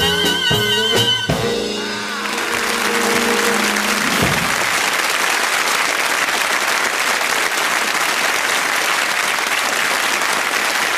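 A small swing jazz band plays its closing bars, with a wavering held note up high, and ends on a held chord that fades out about four seconds in. Studio audience applause swells up from about two seconds in and carries on steadily.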